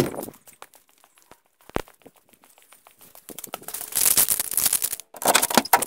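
Crackling, rustling noise with scattered clicks and a sharp knock a little under two seconds in, then louder stretches of rustle in the second half.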